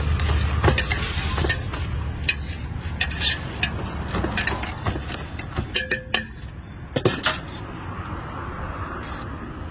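Scattered clinks and scrapes of a steel ladle and utensils against a steel mixing bowl and a brass pot, over a steady low rumble of street traffic that fades after about two seconds.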